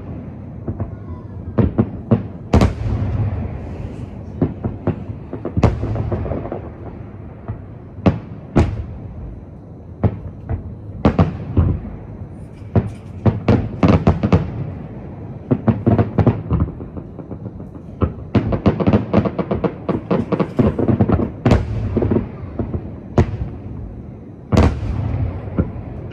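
Aerial firework shells from two displays bursting across a lake: a long run of sharp bangs with a low rumble between them, crowding into a rapid volley of bangs in the last third.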